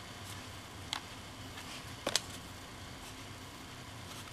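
A few light clicks and taps of stiff card art cards being handled and shuffled: one about a second in and a sharper pair just after two seconds. A faint steady hum runs underneath.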